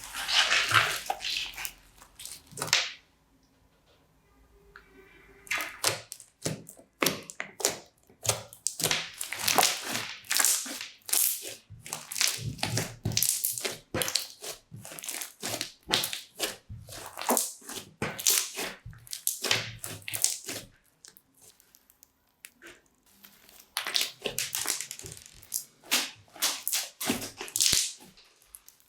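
Crunchy slime packed with small plastic beads being squeezed and worked, crackling and popping in fast runs of small clicks. The crackling comes in bursts of several seconds with short pauses between them.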